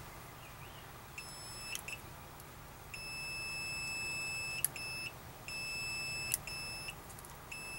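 Autel AutoLink AL539 multimeter's continuity beeper sounding through its built-in speaker: six steady high-pitched beeps, some short and two lasting over a second, each one signalling that the probes read a closed circuit through the car window switch's contacts. Small clicks come as some of the beeps cut off.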